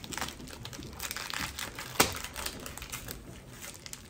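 Foil Pokémon booster pack wrapper crinkling as it is handled and opened, with small ticks of cards being handled; one sharp click about two seconds in.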